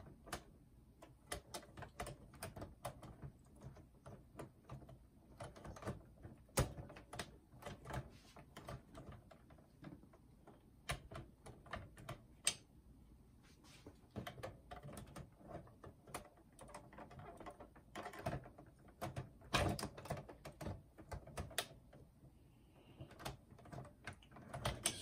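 Irregular clicks, taps and knocks of plastic and metal parts as a cassette tape mechanism is handled and worked back into the chassis of a Sharp GF-8585 boombox, with a few louder knocks among them.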